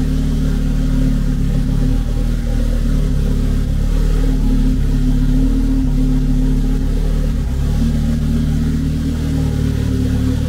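Turbocharged Audi five-cylinder engine (AAN 2.2 20-valve) running steadily just after starting, with no exhaust system fitted, so it runs open straight from the turbo. It is a first run after two weeks' standstill, to bring up oil pressure and cycle the fuel through the injectors.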